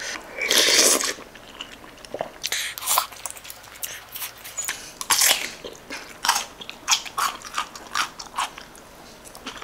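Close-miked eating of sundae gukbap with radish kimchi. There is a loud mouthful about half a second in, then crisp bites and chewing, with a short crunch every second or so.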